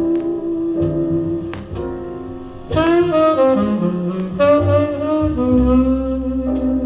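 Jazz record with saxophone played back over TriangleArt Metis loudspeakers from the ANUBIS turntable: held notes over a bass line, then a sliding saxophone phrase comes in about three seconds in.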